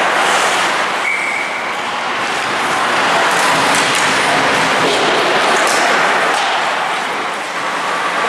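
Live ice hockey game sound in a rink: a steady wash of arena noise with scattered sharp clacks of sticks and puck, and a brief high tone about a second in.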